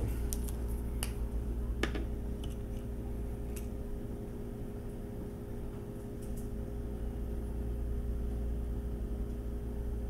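Small clicks and taps of a red acrylic paint marker and a diecast toy car being handled, a few in the first four seconds, over a steady low electrical hum.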